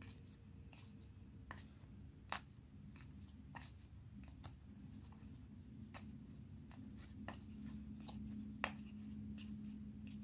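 Trading cards being flicked one after another off the front of a hand-held stack, a short soft snap about once or twice a second, two of them louder. A faint low steady hum underneath.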